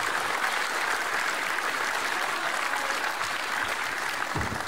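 Wrestling audience applauding and clapping in a hall, steady throughout. A dull thud comes near the end.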